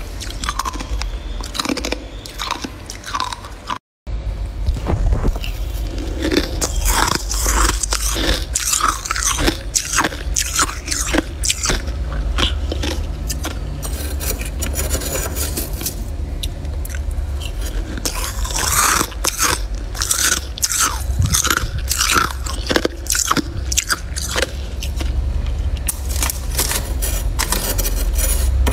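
Ice and frost crunching, broken by a brief cut-out about four seconds in; then a metal spoon scraping and scooping frost off a freezer floor in rapid crunchy strokes, over a low steady hum.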